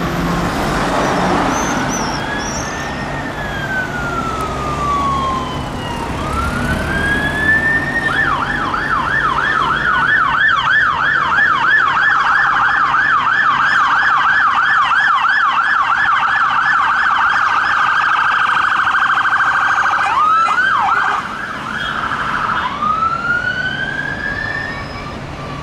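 Electronic sirens of a responding fire engine and its support vehicle: a slow rising and falling wail, switching about eight seconds in to a fast yelp of about three cycles a second, then back to a slow wail near the end, over the low hum of a diesel truck engine.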